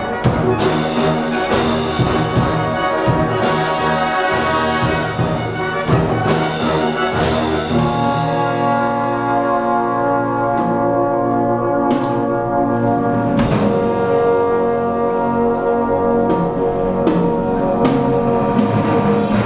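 A brass band of cornets, horns, euphoniums, tubas and trombones playing, with percussion. The first part is busy, punctuated by frequent drum and cymbal strikes; from about eight seconds in the band holds long sustained chords, with a couple more strikes.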